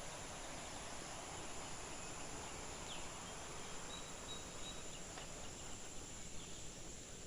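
Rural garden ambience: a steady high-pitched insect drone, with a few faint, brief bird calls about three to five seconds in.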